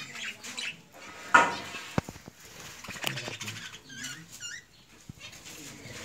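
Budgerigars chirping and chattering in short, quick warbles, with a brief harsh burst about a second and a half in and a sharp click soon after.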